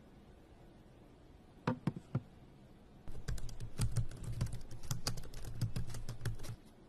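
Typing on a laptop keyboard: rapid, dense key clicks for about three and a half seconds, preceded about two seconds in by a few separate sharp clicks.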